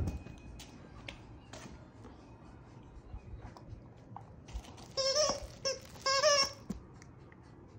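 Two short, high-pitched squeaky vocal sounds, each wavering in pitch, about a second apart, amid scattered soft clicks and taps.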